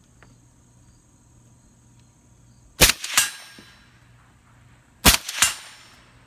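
Two suppressed shots of supersonic 7.62x39 from a Draco AK pistol fitted with a Dead Air Wolverine suppressor, a little over two seconds apart. Each shot is followed about a third of a second later by the ringing clang of the bullet hitting a steel target.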